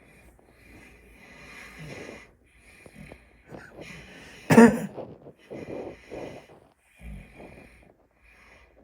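A man snoring while congested with a cold: noisy breaths, each with a high hiss, and one loud, sudden snort about halfway through, followed by a few shorter, heavier breaths.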